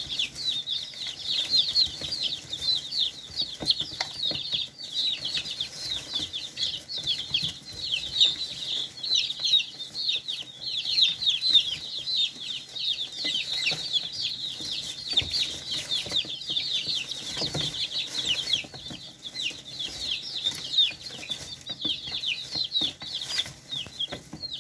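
A flock of young chickens peeping continuously while they feed, many short, high, downward-falling peeps overlapping several times a second.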